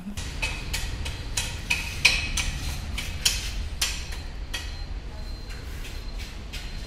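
Quick footsteps clicking on a tiled floor, about three a second, loudest in the first four seconds, over a steady low rumble.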